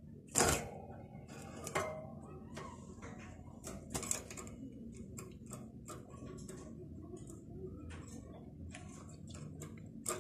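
Faint, irregular light clicks and taps from a European goldfinch moving about its wire cage, with one sharper tap about half a second in.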